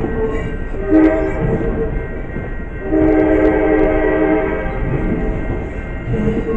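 Train horn sounding: a short blast about a second in, a longer blast from about three seconds, and another starting near the end, over the low rumble of a moving train.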